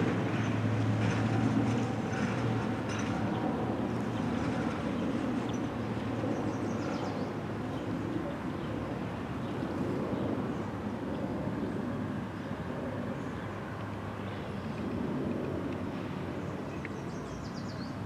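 Road traffic going by: a steady rumble and hiss of passing vehicles, with a low hum in the first couple of seconds.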